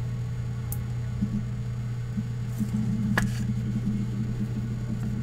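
Steady electrical hum on the recording, with two brief clicks as trading cards and a pack box are handled by gloved hands, one near the start and one about three seconds in.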